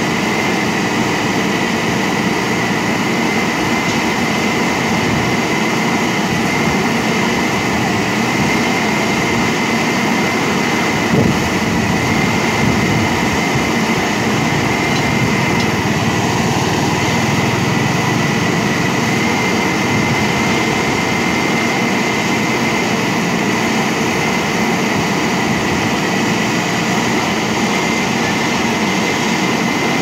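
JCB backhoe loader's diesel engine running steadily, with a steady high whine over it and a single knock about eleven seconds in.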